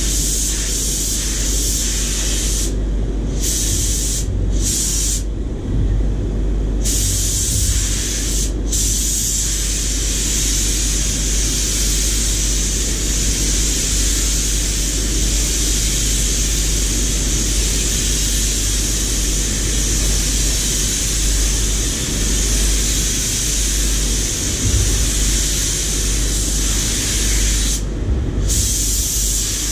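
Compressed-air paint spray gun hissing as it sprays, the hiss stopping briefly several times in the first nine seconds and once near the end, over a steady low rumble.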